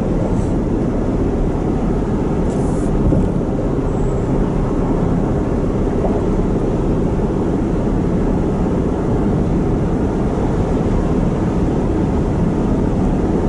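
Steady road and engine noise heard from inside the cab of a tow vehicle travelling at highway speed while pulling a trailer.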